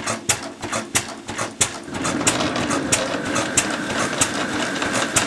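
Single-cylinder Lorenz stationary engine running with sharp, regular exhaust beats about three a second. About two seconds in, the belt-driven grain-crushing mill it powers starts grinding, adding a steady dense grinding rattle under the beats.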